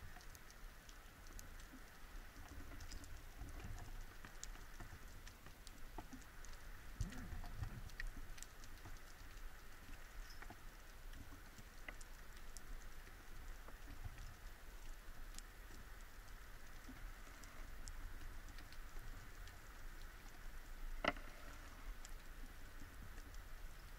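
Faint underwater ambience: a steady crackle of many small scattered clicks and ticks over a low rumble, with one louder click about 21 seconds in.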